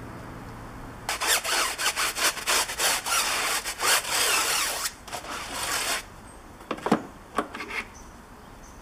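Brush scrubbing a foam-covered alloy wheel in rapid back-and-forth strokes for about five seconds. It is followed by a few sharp knocks and clicks as the brush goes into the wash bucket.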